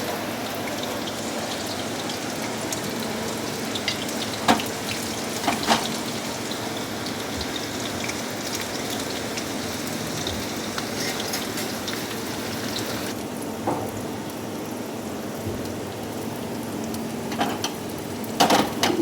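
Pakoras frying in hot oil, a steady sizzle with a few sharp knocks, about four and five seconds in and again near the end.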